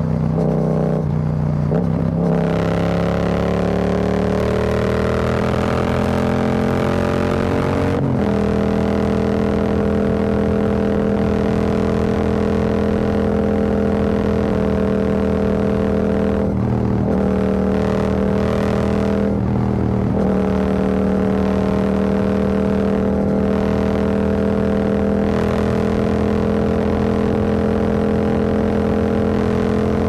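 Yamaha XSR700's 689 cc parallel-twin engine through an Akrapovic carbon full exhaust with the dB killer removed, heard from a helmet microphone at highway speed. Its pitch climbs steadily as it accelerates, falls sharply at an upshift about eight seconds in, then holds a steady cruise with a few brief throttle roll-offs.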